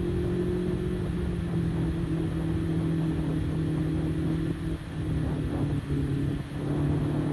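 Motorcycle engine running at a steady cruise, with wind rumble on the microphone; the engine note dips briefly a few times past the middle.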